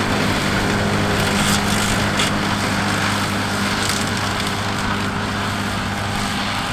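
Tractor engine running steadily under load, with an even hum and mechanical noise.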